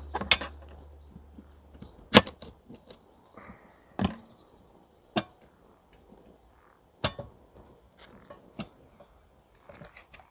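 Kitchen knife chopping on a wooden cutting board: sharp, separate knocks every second or two.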